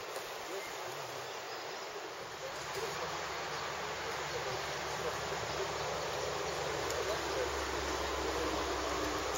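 Steady outdoor background noise: an even hiss, joined after a couple of seconds by a low rumble that slowly grows.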